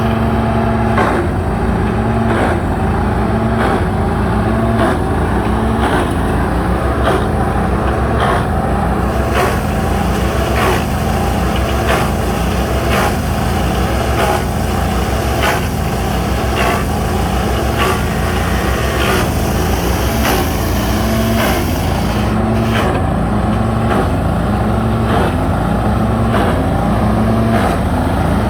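Ohashi ES150GH wood chipper running with a steady engine drone, cut through by sharp knocks that repeat about once or twice a second.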